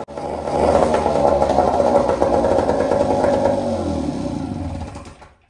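Small outboard motor running hard on a test stand, its speed climbing about half a second in, holding high, then sinking away until it stops shortly before the end. It is running too fast, which the men say needs adjusting.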